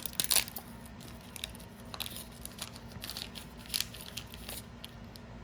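Trading cards being handled and flipped through by hand: a string of short card-on-card slides and flicks, the loudest cluster right at the start and the rest scattered until near the end.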